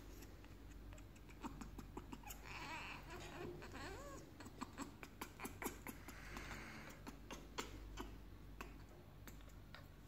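African grey parrot making soft, hoarse calls, two of them a few seconds apart, and a short wavering whistle, among a run of sharp clicks.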